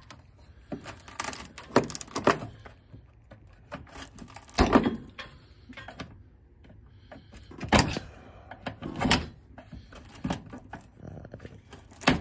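Hand tools knocking and clinking in a car's engine bay: a screwdriver and a socket ratchet on an extension being worked and bumped against the parts around them. A handful of separate knocks, the loudest about five and about eight seconds in.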